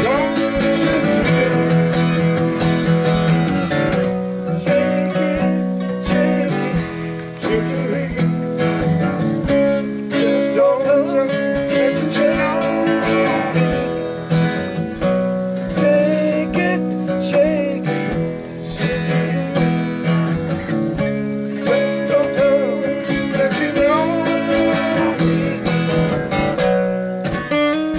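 Acoustic guitars strummed and picked together in a steady, unbroken tune.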